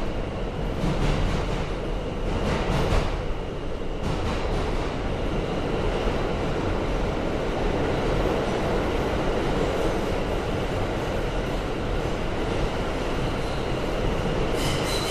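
Inside a moving R160 subway car: the steady rumble of the train running on the rails, with a few clacks in the first few seconds. Near the end a high-pitched wheel squeal starts.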